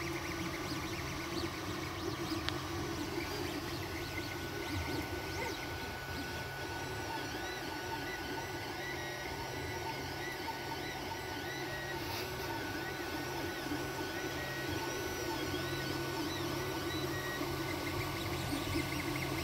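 Creality Ender-3 3D printer printing: its stepper motors whir in quick rising and falling pitch glides as the print head moves back and forth, over the steady hum of its cooling fans.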